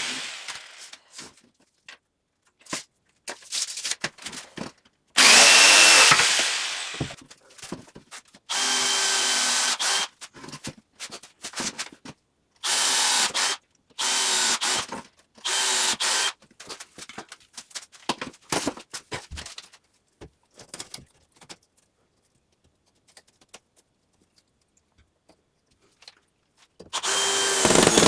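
Power drill running in short bursts of about a second each, six or so times, with clicks and knocks of handling between them. It falls quiet for several seconds before a last burst near the end.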